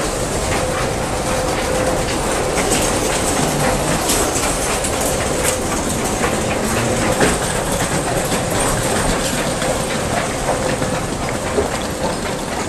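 Busy railway-station ambience: a steady hum with many small clicks and knocks over it.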